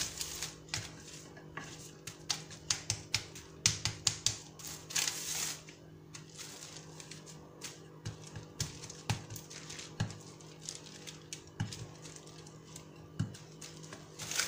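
Wooden rolling pin rolling out dough under plastic wrap on a board: irregular clicks, light knocks and crinkling of the plastic.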